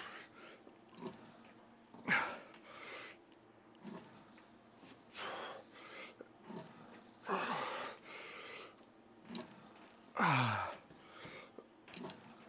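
A man breathing out hard several times while straining through cable tricep pushdown reps, with a strained groan falling in pitch near the end.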